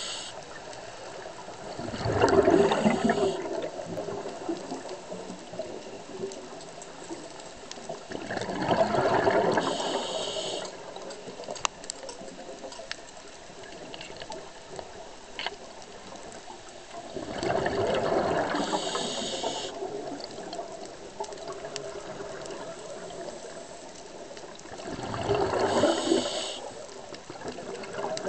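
Scuba diver breathing through a regulator, recorded underwater: four breaths about seven to eight seconds apart, each a rush of exhaled bubbles with a short hiss near its end, over a steady low wash of water.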